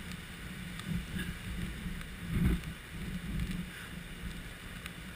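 Muffled low rumble of wind buffeting the camera microphone, mixed with surf breaking on the rocks, with one louder thump about two and a half seconds in.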